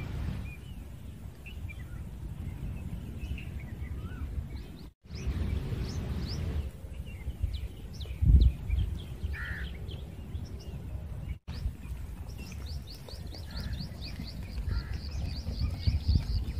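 Rural field ambience: a steady low rumble with birds chirping throughout, and a quick run of high repeated chirps near the end. A single low thump comes about eight seconds in, and the sound drops out briefly twice.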